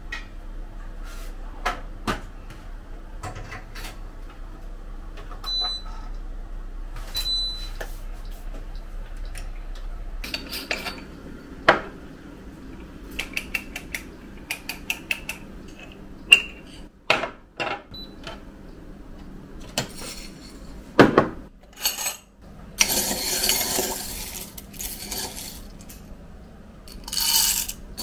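Dishes and kitchen utensils being handled: scattered clinks, taps and knocks, including two short ringing clinks in the first several seconds. About 23 seconds in there are a couple of seconds of rushing noise.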